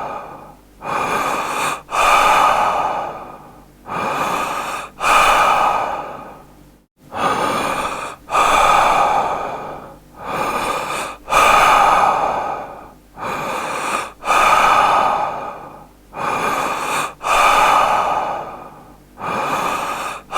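A man breathing deeply and slowly, a breath in and a breath out about every three seconds, seven cycles in all. The second sound of each pair is the longer and louder one, and it trails off.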